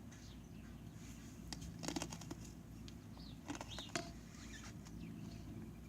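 A quiet pause with faint rustling and clicks, clustered about two and four seconds in, and a couple of short high chirps.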